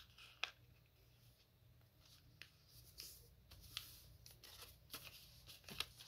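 Faint rustling and creasing of origami paper being folded and pressed flat by hand, with a few short crisp crackles scattered through.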